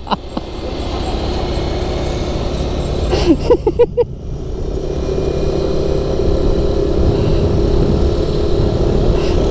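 Yamaha Aerox 155 scooter being ridden: a steady engine drone under low wind and road rumble on the microphone, the engine tone growing stronger from about five seconds in. A brief voice sound comes about three seconds in.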